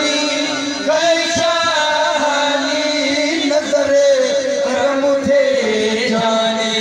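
Men singing a devotional Islamic chant into a microphone, in long, held, wavering lines.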